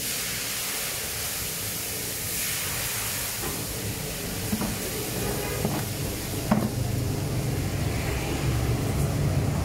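A steady hissing noise with a few faint clicks and taps; no cat calls are heard.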